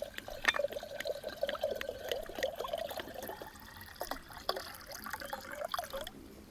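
Tea being poured into a cup, a steady trickling pour for about three and a half seconds, followed by a few light knocks.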